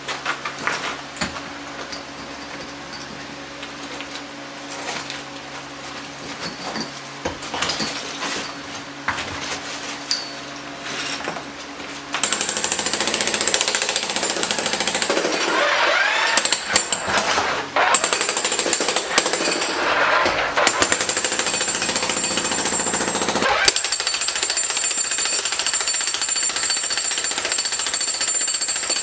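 Jackhammer breaking up concrete curbs. For about the first twelve seconds it is quieter and comes in irregular bursts; from then on it hammers continuously and much louder.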